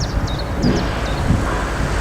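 Wind buffeting the microphone, uneven and rumbling, with a quick run of short high chirps, about four a second, that stops about a third of the way in.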